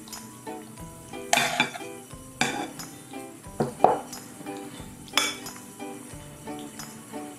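Soft background music with a few short rustling, clinking noises, roughly one every second or so.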